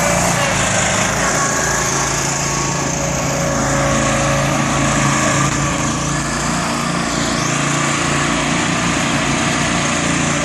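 Small gasoline engine running steadily at a constant speed, typical of the power buggies and other gas-driven equipment used on a concrete pour.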